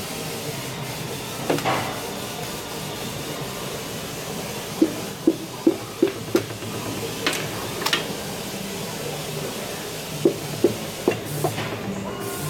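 A piston being tapped down through a ring compressor into a 5.7 Hemi cylinder bore with a hammer: a quick run of five sharp taps, a couple of lighter clicks, then three more taps. A steady shop hum runs underneath.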